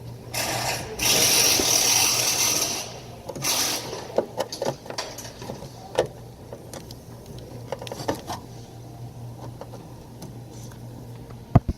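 Car door parts being handled and fitted back together: a few seconds of loud rustling, then scattered plastic clicks and knocks, with one sharp click near the end, over a low steady hum.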